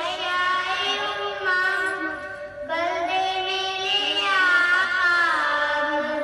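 A child singing a naat without accompaniment, in long, drawn-out melodic lines, with a short pause for breath about two and a half seconds in.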